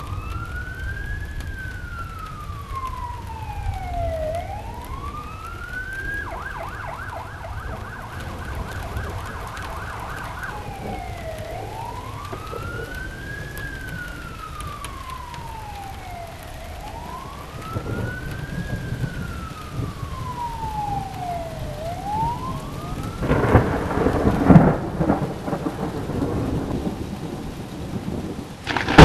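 An emergency-vehicle siren wails up and down in slow cycles over steady rain, with a stretch of rapid pulsing from about a fifth to a third of the way in. Rolling thunder comes in about two thirds of the way in and is loudest near the end.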